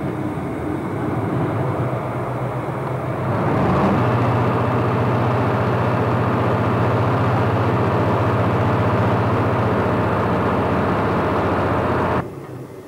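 Motor of a river-cruise boat running steadily under way, with a strong low hum. It gets louder about four seconds in, then cuts off suddenly near the end.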